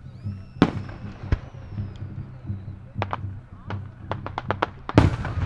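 Aerial firework shells bursting overhead: two sharp bangs in the first second and a half, then a quick run of crackling reports and a loud bang about five seconds in. A thin high whistle falls slowly in pitch during the first couple of seconds.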